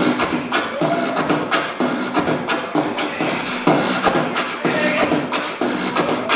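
Human beatboxing: a solo mouth-made beat of sharp kick and snare strikes at a steady pulse of about two a second, with a pitched vocal line woven between the strikes.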